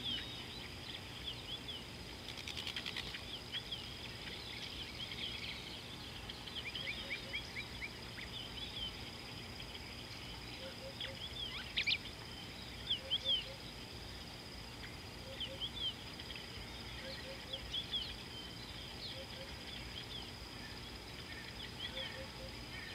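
Wild birds chirping: many short, quick high chirps throughout, a run of rapid notes about seven seconds in and a louder sweeping call about twelve seconds in. Soft paired low calls repeat every few seconds, over a steady high whine.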